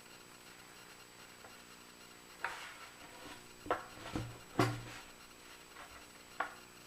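A handful of sharp knocks and clacks from things being handled and set down, five over about four seconds, the two in the middle with a heavier thud.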